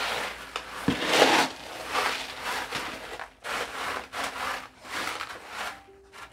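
Coarse drainage grit poured from a plastic scoop into a cardboard box pot, then spread by hand: a gritty rush at first, then repeated uneven scraping and rubbing strokes of the stones against each other and the cardboard. This is the coarse drainage layer being laid in the bottom of the pot.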